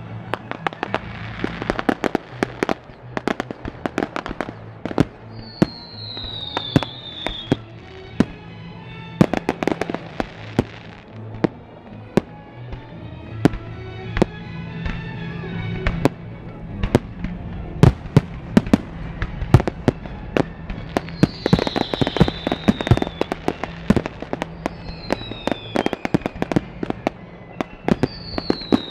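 Fireworks display: rapid bangs and crackling reports from bursting shells, heaviest in the first few seconds and again over the last ten, over music with a steady low bass. Several short whistles falling in pitch come and go.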